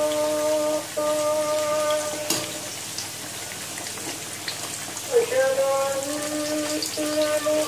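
Battered potato slices deep-frying in hot oil in a wok, sizzling and crackling steadily, with a few clicks of the skimmer. Over it, a voice sings long held notes that break off and resume, sliding in pitch about five seconds in.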